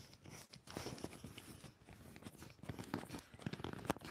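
Handling noise from the recording phone on its stand being tightened and adjusted: scattered clicks, rubs and knocks on the microphone, with a sharper knock near the end.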